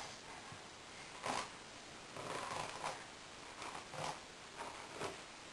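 A brush being stroked through a dog's fur: a few faint, irregular scratchy swishes.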